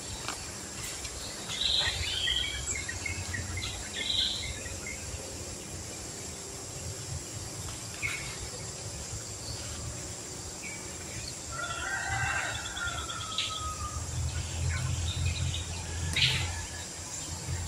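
Outdoor ambience of scattered bird calls and short chirps, with one longer falling call a little past the middle, over a steady low rumble.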